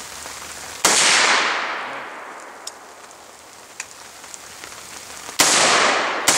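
AR-15 rifle shots: one about a second in, then two close together near the end, each followed by a long rolling echo that dies away over a couple of seconds. A few faint ticks fall between the shots.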